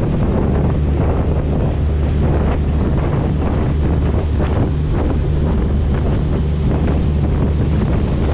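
Wind buffeting the microphone on the deck of a moving passenger ferry, over the steady low drone of its engines and the rush of water along the hull.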